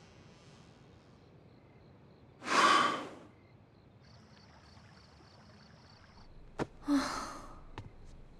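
A person's heavy sigh, one loud breathy exhale, about two and a half seconds in. A shorter breathy sound and a few light clicks follow near the end.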